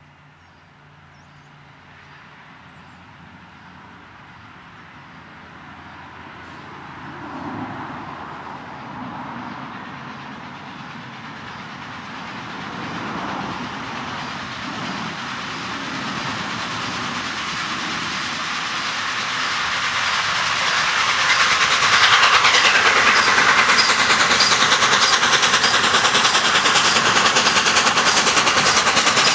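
Three-cylinder A1 Pacific steam locomotive Tornado working hard up a steep bank, its rapid exhaust beats growing steadily louder as it approaches, loudest for the last third as it comes close.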